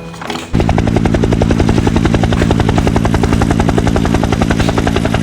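Battery-powered toy helicopter playing its electronic rotor sound, a fast, even chopping beat over a steady low hum, switching on about half a second in.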